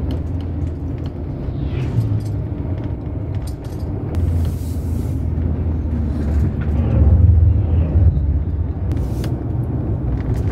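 Inside the cab of a Winnebago Travato camper van on the move: a steady low engine and road rumble that gets louder about seven seconds in.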